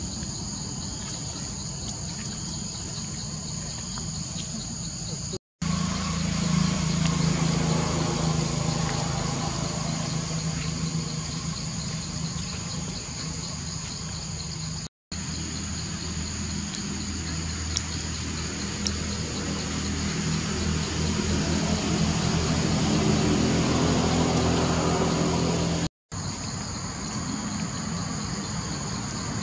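Steady high insect drone, joined about five seconds in by a louder low, even engine hum that runs until near the end. The sound drops out briefly three times.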